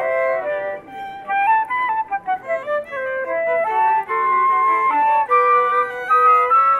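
A live trio of flute and violins playing a classical piece, with a quick falling run of notes about two seconds in before the held notes resume.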